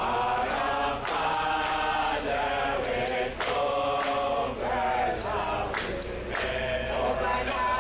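A choir of voices singing held notes together over a steady light beat.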